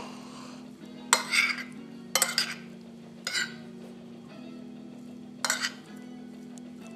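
Metal spoon stirring potato and octopus pieces in a ceramic bowl, scraping and clinking against the bowl four times, over soft background music.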